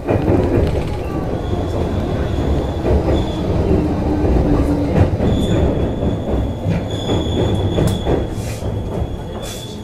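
JR 221 series electric train running on rails, heard from inside the car: a steady low rumble of wheels on track, with a high-pitched wheel squeal that comes and goes several times and a few sharp clicks over rail joints. The running sound eases off toward the end as the train slows for its final stop.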